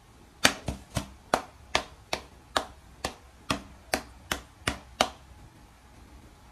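A quick run of about a dozen sharp taps, roughly two or three a second, lasting about four and a half seconds.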